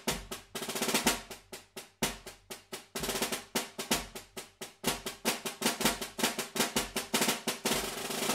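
Snare drum played with sticks in a rudimental solo: rapid strokes and double-stroke rolls with strong accents about once a second.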